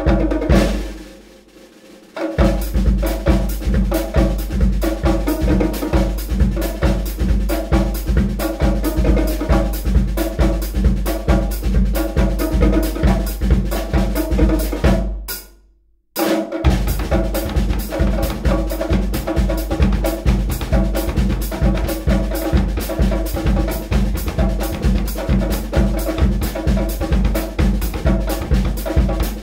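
A percussion group plays a fast, steady drum groove on drum kit, marching bass drum and bongos, about four hits a second. The beat fades out about a second in and stops briefly near the middle, each time crashing back in.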